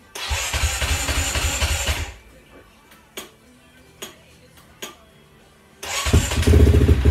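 Honda CRF250X's single-cylinder four-stroke engine at its first start after a rebuild. It fires and runs loudly for about two seconds, drops to a faint sound with a few sharp pops, then runs loudly again for about two seconds near the end.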